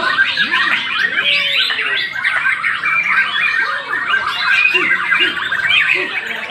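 Many caged competition songbirds singing at once, a dense, unbroken mass of overlapping chirps, trills and whistles.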